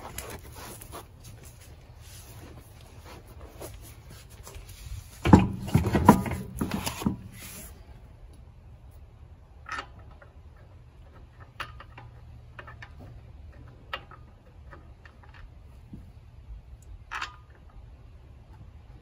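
A car wheel is lifted and slid onto the hub studs, scuffing, with a heavy knock and scrape about five seconds in as it seats. Then come scattered light metallic clicks as lug nuts are threaded onto the studs by hand.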